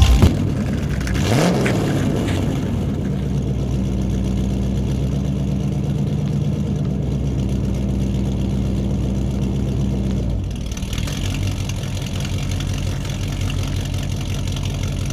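A vehicle engine running steadily with a low hum. About a second and a half in it briefly rises and falls in pitch, and around ten seconds in its tone changes.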